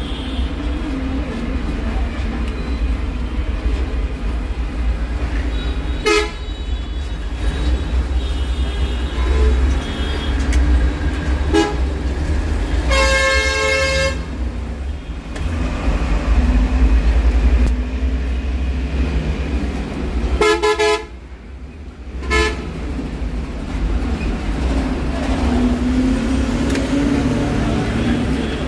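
Street traffic rumbling steadily, with a vehicle horn honking for about a second halfway through and a few shorter honks later.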